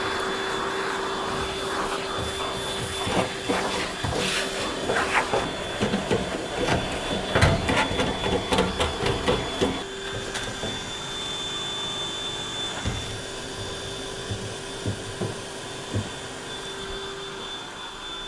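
Vacuum cleaner running with a steady whine while its hose sucks dust and lint out of the back of a tumble dryer. From about two to ten seconds in there are many rattles and clicks as debris goes up the hose, then it runs more steadily.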